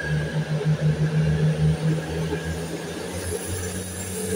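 Two Belgian electric passenger trains passing each other on adjacent tracks, with a steady low rumble and hum of wheels and traction. The hum drops lower about three and a half seconds in.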